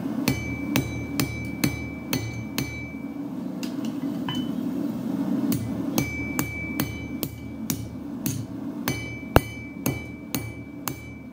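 Hand hammer striking a hot railway spike on the flat face of an anvil to draw out a knife blade: steady blows about two a second, each with a bright metallic ring from the anvil. The blows come in three runs with short pauses between.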